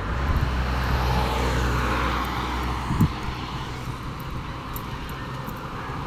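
A motor vehicle passing on the road: engine hum and tyre noise swell over the first two seconds, then fade away.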